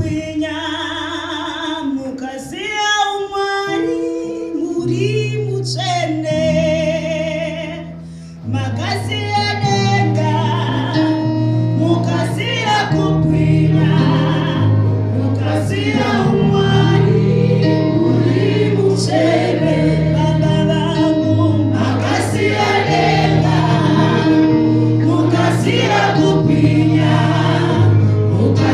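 Live gospel worship singing in Shona through microphones: a woman's voice leads almost alone at first, then about eight seconds in the other singers and the backing music come in with a steady beat.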